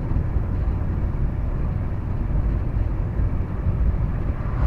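Steady low rumble of a vehicle driving, road and engine noise heard without change.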